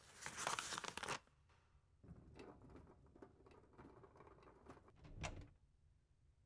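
Paper rustling from a hardcover book being handled and its pages turned: one swishing rustle in the first second, then lighter rustling with small clicks, ending in a louder page rustle about five seconds in.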